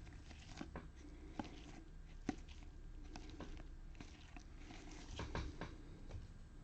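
Trading cards being handled: faint, scattered clicks and rustles as glossy cards are slid off a stack and flipped, with a few sharper taps around two seconds in and again near the five-second mark.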